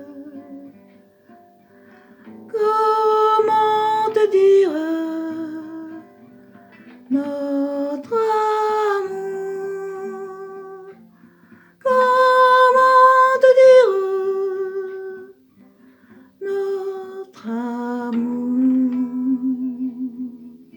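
Music: slow sung melody with acoustic guitar accompaniment, in four drawn-out phrases with vibrato and short pauses between them.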